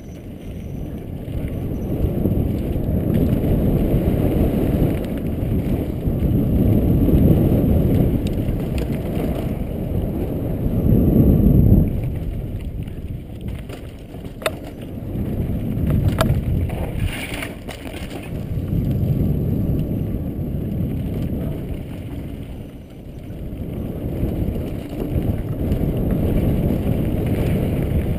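Wind buffeting a helmet-mounted camera's microphone, mixed with a mountain bike's tyres rumbling over a dirt trail at speed. The rush swells and fades with the riding speed, peaking about twelve seconds in and dropping off sharply, with a few sharp clicks a little later.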